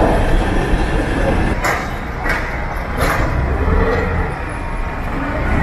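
Heavy vehicle engines running with a steady low rumble, with three sharp metallic clanks about a second and a half, two and three seconds in.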